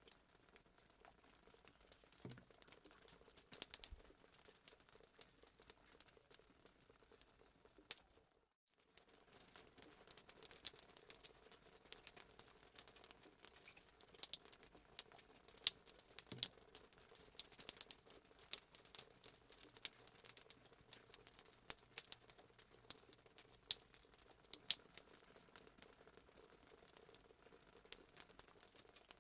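Fireplace sound effect: a wood fire crackling faintly, with irregular sharp pops and snaps over a soft hiss. It drops out completely for a split second about eight seconds in.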